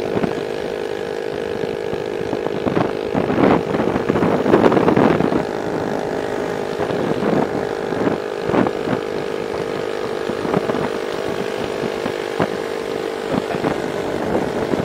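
Small underbone (kapcai) motorcycle engine at a steady cruising speed, a constant drone through a noisy exhaust. Wind buffets the microphone in gusts, most of all in the first five seconds.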